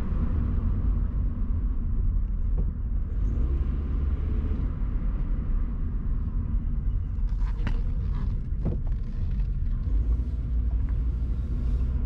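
Cabin noise of a 1999 Honda Accord driving on a street: a steady low rumble of engine and tyres, with a few short clicks about two-thirds of the way through.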